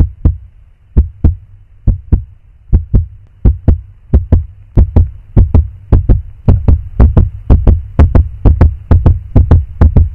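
Heartbeat sound effect: deep thumps in lub-dub pairs over a low drone, starting slow and speeding up steadily until they come about three times a second.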